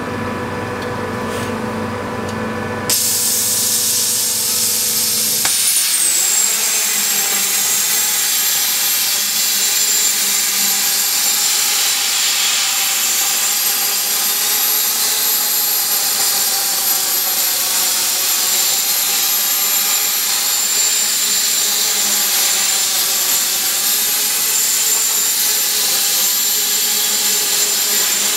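Kasry CNC plasma cutting torch striking its arc about three seconds in, after a steady machine hum, then cutting a steel beam with a loud, steady hiss. A thin, high, steady whine joins the hiss a few seconds later.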